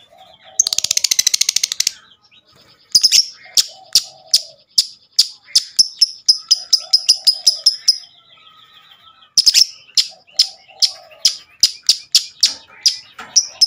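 Lovebird singing its 'ngekek' song: a loud, very fast chattering trill lasting about a second near the start, then long series of sharp, shrill chirps at about three a second, broken by a short pause past the middle.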